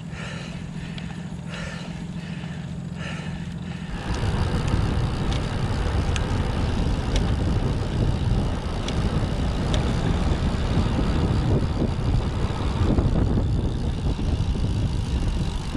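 Wind and road noise on a moving road bike, fairly quiet at first and then rising sharply about four seconds in to a loud steady rush as the bike picks up speed.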